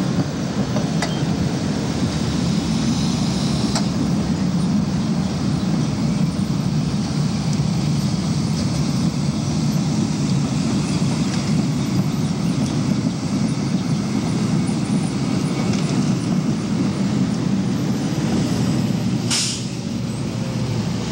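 Muni streetcars (Boeing light-rail cars and a PCC car) running past at street level: a steady low rumble, with a short hiss near the end.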